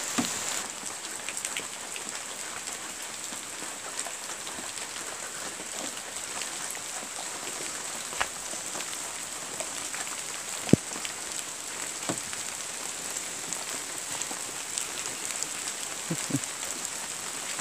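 Steady rain falling, an even patter with a few sharper drop taps scattered through it, the loudest about eleven seconds in.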